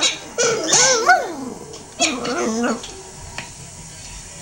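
Boston Terrier howling: two wavering howls that rise and fall in pitch, the second ending about three seconds in.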